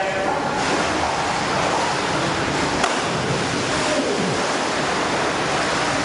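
Loud, steady rushing and splashing of churned-up pool water around a swimmer in a life jacket, as in a sea survival drill with artificially rough water.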